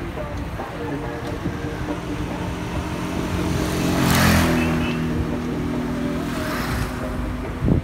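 A car overtaking close by, its engine and tyre noise swelling to a peak about four seconds in and then fading, with a smaller swell of passing traffic near the end.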